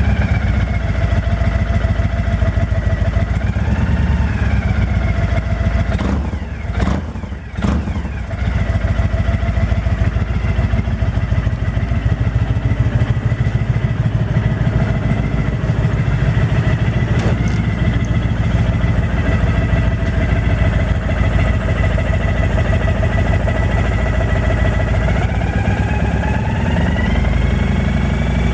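Honda VTX 1300 V-twin engine running, with a high whistling whine whose pitch follows the revs. The whine rises and falls briefly about three seconds in and climbs again near the end as the engine is revved. Its source in the engine is unidentified.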